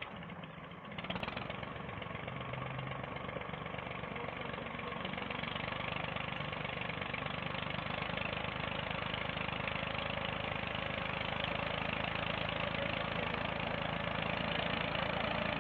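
Massey Ferguson tractor's diesel engine running steadily as it drives a tube-well pump through a shaft and wooden pulley, picking up about a second in and growing gradually louder. Near the end, water gushes from the pump's outlet pipe into the brick channel.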